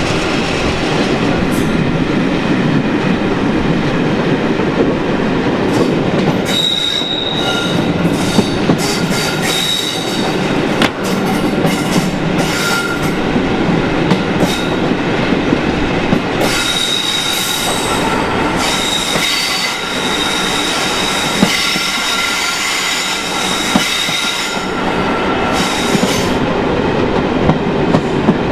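Passenger coaches running on the line, heard from an open carriage window: a steady rumble of wheels on rail with scattered clicks over rail joints. A high, steady wheel squeal comes in on curves, in short spells from about six seconds in and then for much of the second half.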